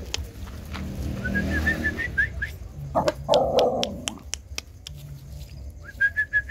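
Dogs giving short yips and whines, among many sharp clicks, with two quick runs of high chirping notes, one about a second in and one near the end.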